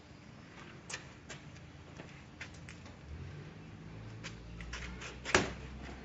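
Power cable testing machine being operated: a few scattered clicks, then a low electrical hum from about three seconds in that stops with a louder click a little after five seconds.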